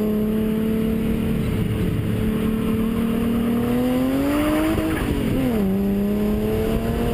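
BMW E34 M5 S38 straight-six engine in an Opel Ascona drift car, running under throttle with its pitch slowly climbing. The pitch rises further about four seconds in, drops sharply around five and a half seconds in, then climbs steadily again.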